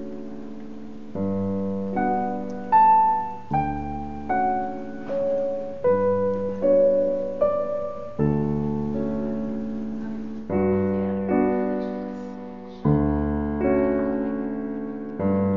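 Background music: a slow solo piano piece, chords struck about once a second and left to fade.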